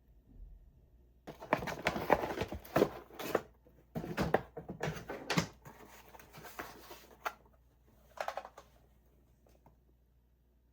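Packaging handled at close range: bursts of rustling, crinkling and small knocks in two longer spells, then a few shorter ones near the end.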